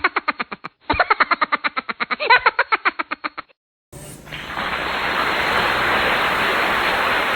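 A cartoon-style sound effect: a fast run of pitched pulses, about ten a second, stopping about three and a half seconds in. After a brief silence a steady hiss begins.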